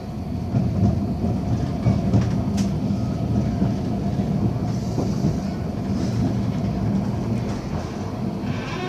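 Tram running along the line, heard from inside the passenger car: a steady low rumble of wheels on rails, with a few sharp clicks.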